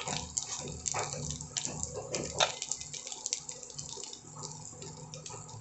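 Fish roe and liver frying in shallow oil in a steel pan: a dense sizzle with many small crackles and pops. The pops thin out and grow quieter toward the end.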